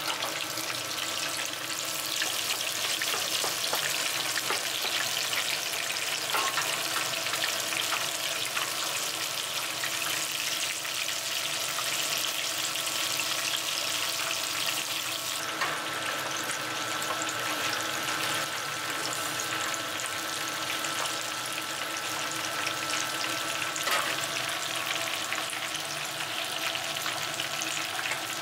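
Vegetable and shrimp kakiage batter deep-frying in a pan of hot oil, with steady, dense sizzling and bubbling.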